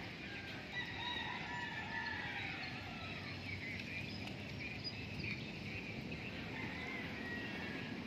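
Roosters crowing, several calls overlapping, over a steady low background noise.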